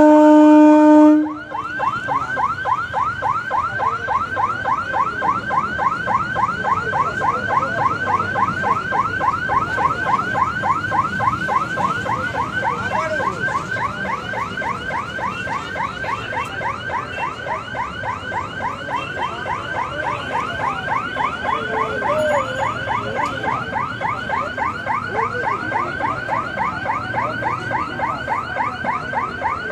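An electric train's horn sounds a steady blast that cuts off about a second in. A level-crossing warning alarm then chirps fast and evenly, about five chirps a second, over the rumble of the passing EMU local train.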